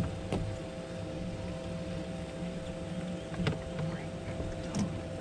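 A boat motor running steadily with a low hum and a faint constant whine. About three short, light knocks come through it, the last two close together near the end.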